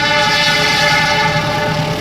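Diesel locomotive's multi-tone air horn sounding one long, loud blast, several tones together, over the locomotive's steady engine hum.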